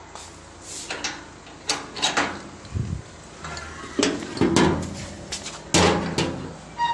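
A metal house gate being swung shut and bolted: a series of clanks and scraping knocks of metal on metal, the loudest a little before the end.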